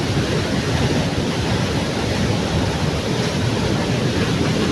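Waterfall's steady rush of falling water, loud and close, heaviest in the low range.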